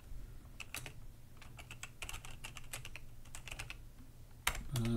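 Typing on a computer keyboard: irregular short runs of keystrokes with pauses between, and one sharper click near the end.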